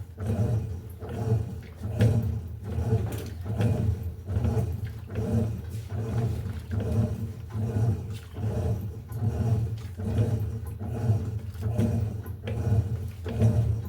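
Electrolux LTE08 top-loading washing machine in its agitation stage: the motor and agitator churning the water and clothes in a steady repeating rhythm of surges, a bit under two a second.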